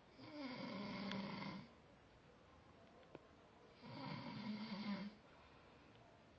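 A man snoring in his sleep: two long snores about three and a half seconds apart, each opening with a falling pitch and settling into a steady low tone.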